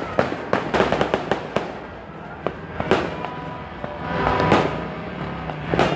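New Year fireworks and firecrackers going off in a string of sharp bangs and crackles, with a louder stretch about four seconds in and a loud bang near the end.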